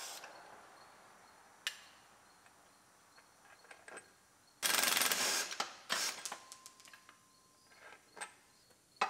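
Snap-on cordless power tool running in two short bursts about halfway through, spinning out the driveshaft's front flange bolts. Scattered metal clicks and clunks come before and after.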